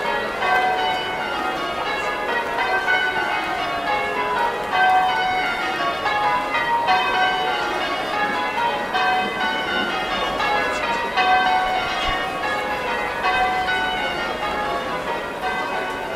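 A peal of church bells ringing in quick succession, several bells struck one after another in a repeating sequence, each note ringing on as the next is struck.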